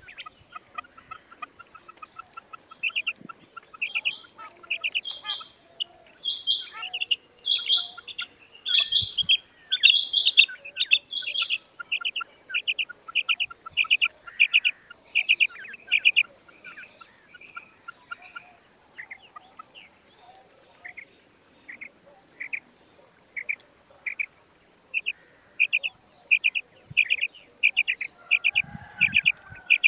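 A caged female quail calling: runs of short, sharp high notes repeated about twice a second, loudest and shrillest around six to eleven seconds in. A softer, faster series of ticks sounds under the calls in the first few seconds, and there is a dull bump near the end.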